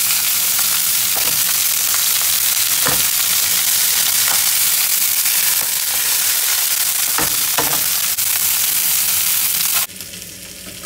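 Chicken drumsticks sizzling loudly in hot oil in a frying pan as they sear, with a few light knocks along the way. The sizzling cuts off suddenly near the end.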